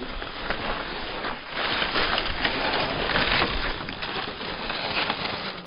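Cross-country skis scraping and sliding over icy, crusty snow on a fast downhill run, a rough crackling rush mixed with wind on the microphone. It grows louder about a second and a half in.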